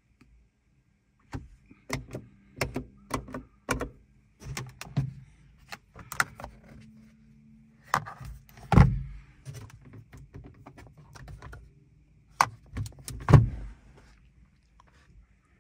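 Clicks and knocks from a car's doors and controls being worked, with a low steady hum for several seconds as a power window motor runs. Two heavier thumps, about nine and thirteen seconds in.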